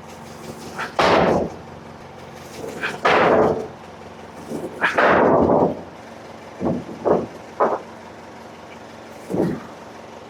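Ford 555C backhoe's diesel engine idling steadily, with about seven loud, short noisy bursts over the top, three longer ones in the first half and shorter ones after.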